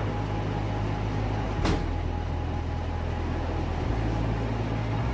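Cable car station machinery running with a steady mechanical noise, with one sharp knock a little under two seconds in.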